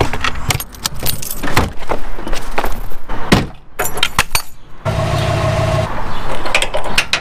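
Trailer hitch being coupled: a string of metal clanks and rattles from the coupler on the hitch ball and the safety chains. A steady hum with a held tone runs for about a second a few seconds in, and then the clanking resumes.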